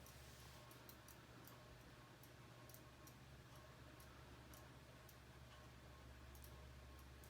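Faint, unevenly spaced clicking of a K'nex plastic Rock-o-Plane ride model spinning by hand, a couple of clicks a second, over a low steady hum.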